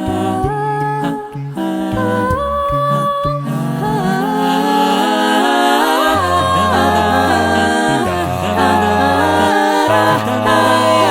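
A cappella vocal ensemble singing a wordless passage: several voices holding and moving through chords, with a sung bass line underneath.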